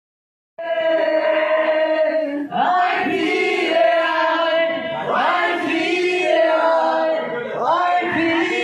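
Live singing: after a brief moment of silence, one long held note, then sung phrases that slide up and down in pitch.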